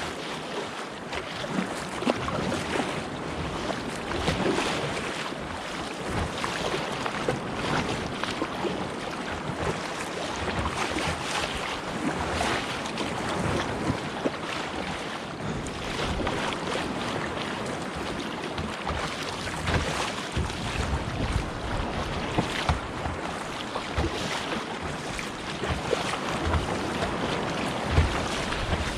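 Sea water splashing and lapping around a kayak, with wind noise on the microphone; irregular short splashes over a steady wash, one sharper splash near the end.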